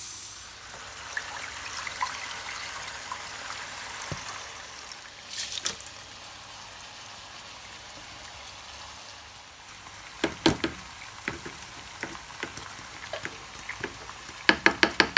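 Water running and pouring from a tap, with a few sharp clinks, and a quick run of them near the end.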